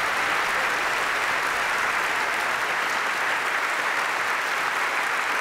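Large congregation applauding, a steady, dense clapping throughout.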